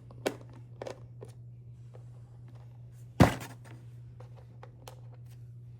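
Small clicks and taps from hand work on a foam RC jet's hatch screws, with one loud thunk about three seconds in, over a steady low hum.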